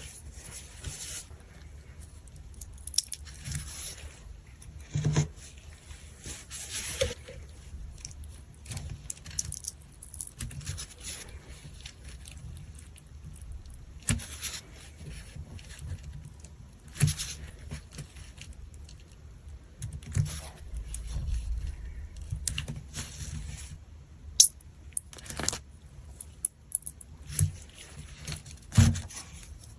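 Hands squeezing and handling a squishy stress-relief toy: irregular clicks, crinkles and short rustles, some sharper snaps standing out.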